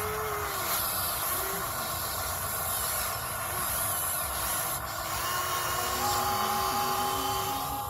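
RC hydraulic construction model running: a steady hiss and whine from its electric hydraulic pump and motors, with faint tones shifting in pitch as the machine moves.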